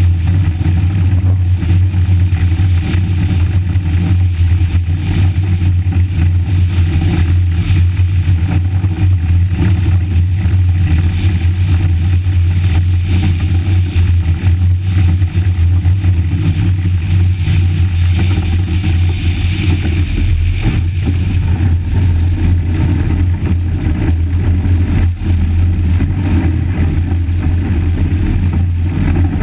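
XV Monotype ice yacht runners rumbling over the ice at speed, a loud steady low rumble carried through the hull, with a rushing hiss above it.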